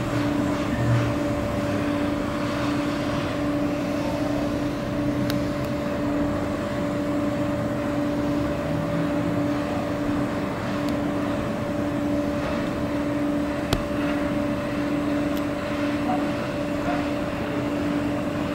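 Small electric motor of a rotating display turntable running with a steady hum and constant noise, with one short click about fourteen seconds in.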